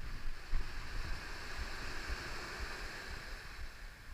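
Steady outdoor background hiss with irregular low rumbling of wind on the microphone; no single distinct sound stands out.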